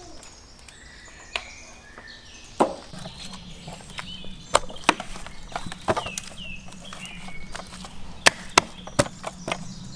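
Sharp, irregular knocks and clacks of a stainless steel tray as raw lamb legs are shifted about in it by hand, with a few bird chirps behind.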